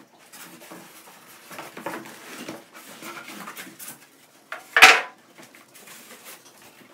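Unpacking a mini fridge: scattered rustling and clattering of packaging and parts being handled, with one loud sharp knock about five seconds in.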